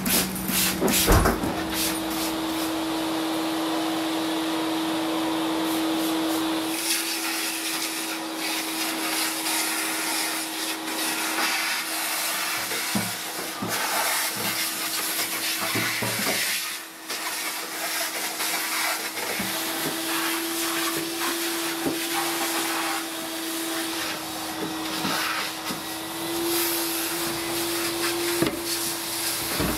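Vacuum cleaner running steadily with its hose sucking debris out of a plastic refrigerator crisper drawer, with occasional knocks of the nozzle against the plastic.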